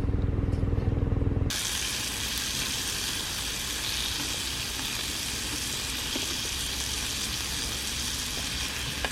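A steady engine-like hum for about the first second and a half, then an abrupt change to the even hiss of meat sizzling on a camping grill.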